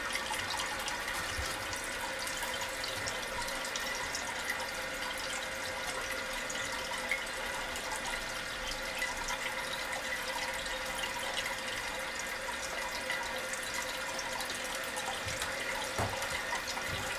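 Water running from the new fill valve into a Toto one-piece toilet tank, rinsing out the tank before the flapper is set: a steady rush of flowing water with a faint steady tone in it.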